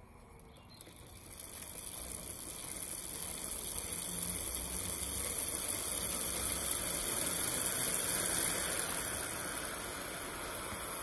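Upside-down mountain bike's chain drivetrain and rear wheel with a Maxxis Ardent tyre whirring as the pedals are cranked by hand, spinning the wheel up to speed. A steady rushing whir that builds over the first few seconds and eases a little near the end as the wheel is left to spin.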